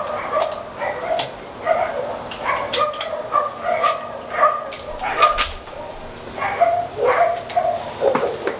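A dog whining and yipping, short high calls repeated over and over.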